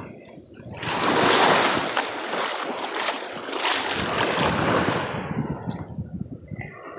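Small surf washing in over the shallows at the water's edge: a hissing wash that swells about a second in and ebbs away over the last couple of seconds.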